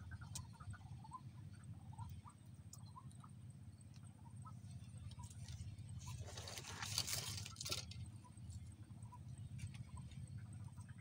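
Faint, scattered short chirps of small animals over a low steady rumble. About six seconds in comes a brief rustling noise, the loudest sound here.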